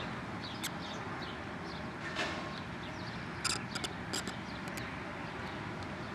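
Outdoor city ambience: a steady rush of distant traffic and wind, with short bird chirps in the first second and a quick run of sharp chirps about halfway through. No thunder is heard.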